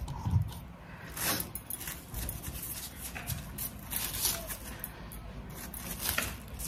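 Plastic cling wrap crinkling and rustling in short, irregular spurts as hands gather it and pull it around a block of dough.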